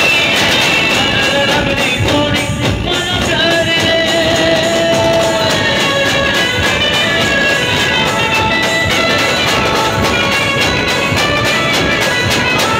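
Live band music: a melody line of long held notes over dense, fast percussion, loud and steady throughout.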